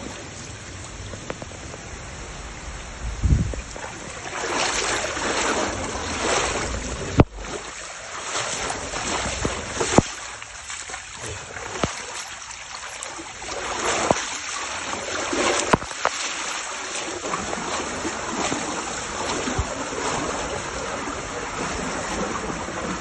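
Torrential rain pouring onto a flooded street: a steady hiss of drops splashing into running water that swells and eases in surges. A handful of sharp cracks come through the middle.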